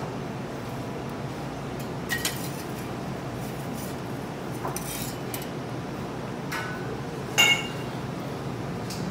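Kitchen clinks, like dishes or utensils knocking together, over a steady low background hum. There are a few short sharp clinks, and the loudest rings briefly about seven and a half seconds in.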